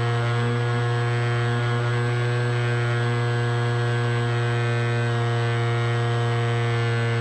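Electric motors and propellers of a camera drone heard from its onboard camera: a steady, loud whine at one pitch, as at constant throttle.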